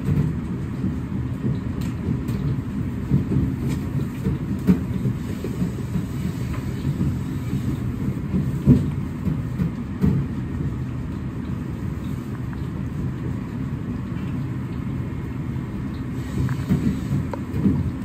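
Steady low rumble of a commercial kitchen, with light, irregular taps of a Chinese cleaver on a plastic cutting board as a block of firm tofu is cut into cubes.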